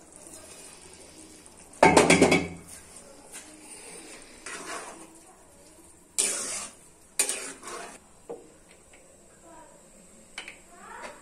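Metal pot clanking against a steel cooking pan as boiled chana dal is tipped in, the loudest knock about two seconds in, then a metal spatula scraping and knocking the pan while stirring, with the curry sizzling faintly underneath.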